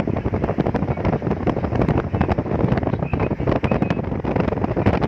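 Wind buffeting the microphone of a phone held at the window of a car moving at highway speed, over the steady rumble of the car and the road.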